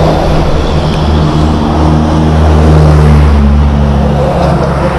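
A motor vehicle engine running steadily with a low rumble, swelling a little louder around the middle.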